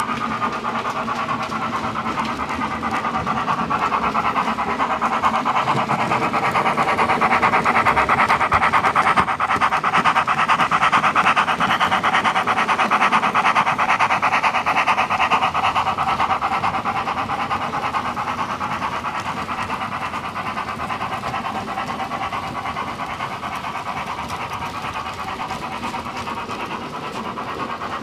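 Model steam locomotive's DCC sound decoder chuffing in a fast, steady rhythm as it hauls a goods train. It grows louder as the engine passes close, from about four seconds in to about the middle, then eases off.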